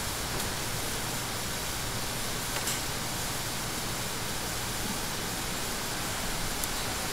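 Steady background hiss with no speech: room tone and recording noise, with a few faint ticks.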